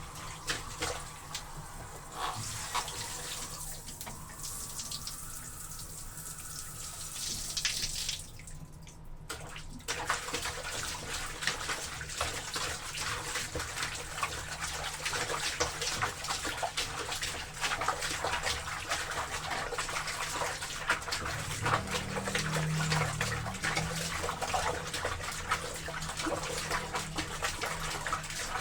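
Water splashing and sloshing in a tub as clothes are washed in it, with many small splashes. The splashing eases briefly about eight seconds in, then grows busier.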